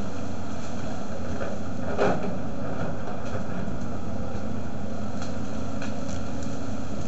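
Volvo crawler excavator's diesel engine running steadily as the machine pushes into trees, with one sharp crack of breaking wood about two seconds in and a few faint snaps later.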